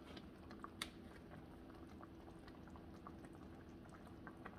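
Crumbled pecan and vegetable mixture simmering faintly in a stainless skillet, with scattered soft pops and one sharper click about a second in.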